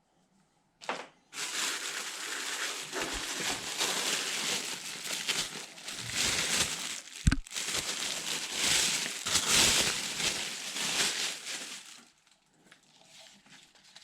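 Irregular crinkling and rustling of packaging being handled, with one sharp knock about seven seconds in.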